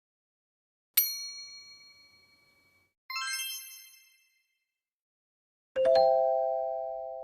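Three separate chime sound effects, each fading away: a bright ding about a second in, a glittering cluster of high chimes about three seconds in, and a lower ringing bell tone near the end.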